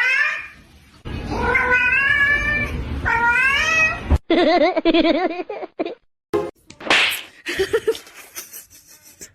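A cat yowling in three long calls with a wavering pitch, followed by a lower, warbling sound and a few short knocks and rustles.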